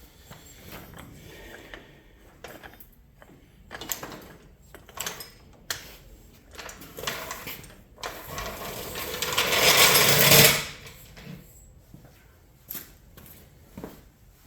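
Tools and metal parts handled while working on a motorcycle: scattered clicks and knocks, then a louder noisy stretch that builds for about two and a half seconds and cuts off suddenly.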